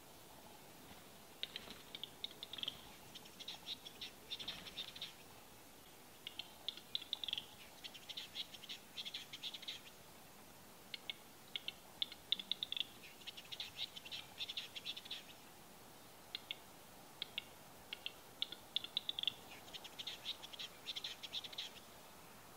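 Male western capercaillie giving its lek display song four times over: each phrase is a series of dry clicks that starts slowly and speeds up into a dense, rapid clicking.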